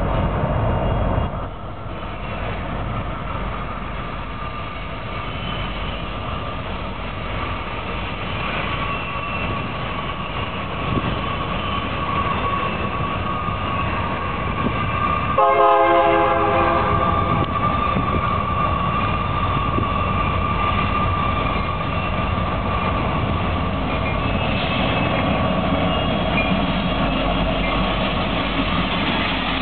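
Union Pacific diesel freight locomotives, led by UP4156, approach and pass close by, engines and wheels on rail getting louder. About halfway through, the locomotive horn sounds one blast of about a second and a half.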